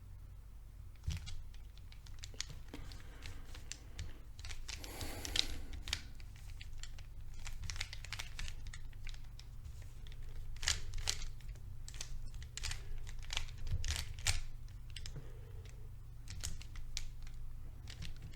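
Rubik's Cube being turned by hand: the plastic layers click and rasp in irregular quick runs of turns, with a longer scraping stretch about five seconds in.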